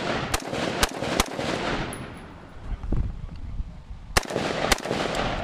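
AR-15 rifle firing: three quick shots in about the first second, then two more close together about three seconds later, each followed by a rolling echo.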